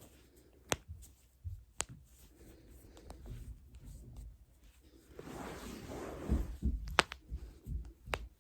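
Joints cracking under manual manipulation: a sharp pop about a second in and another a second later, then, after a stretch of rustling, a louder pop near the end followed by a fainter one.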